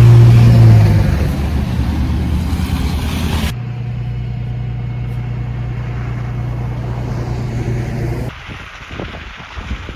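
A motor vehicle's engine running with a steady low hum, loudest in the first second. The sound changes abruptly at about three and a half seconds, and near eight seconds it gives way to an uneven, gusty noise.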